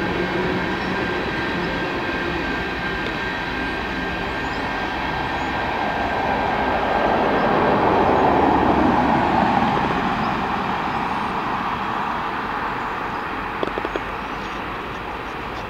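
Empty railway tank cars rolling past on the track. The noise swells as the last car goes by about halfway through, then fades as the train pulls away. A thin steady whine runs under the first half.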